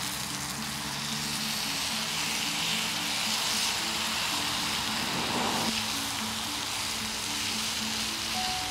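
Soft background music, a simple melody of short held notes, over a steady hiss.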